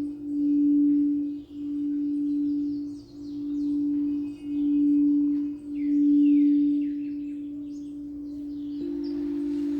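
Singing bowl ringing with one low sustained tone that wobbles, swelling and fading about every second and a half, then evens out; a second, slightly higher bowl tone joins near the end.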